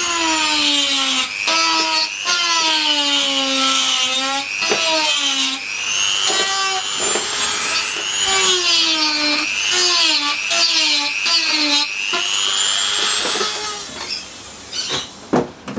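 Dremel rotary tool grinding a hole in a plastic kayak hull, its motor whining and repeatedly dipping in pitch as the bit bites into the plastic, then stopping near the end.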